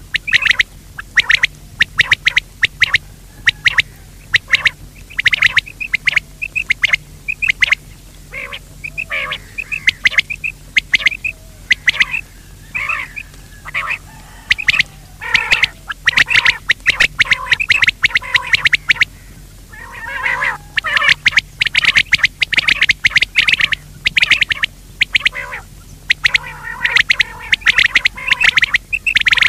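Coturnix quail calling: dense runs of short, sharp notes repeated rapidly, in clusters with brief pauses, over a steady low hum.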